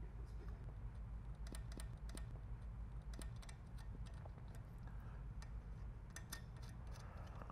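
Faint, irregular light clicks and ticks of small metal hardware handled by hand: a flange nut being turned onto its bolt and the steel bullet tray bracket tapping against the press's aluminium strong mount, over a low steady hum.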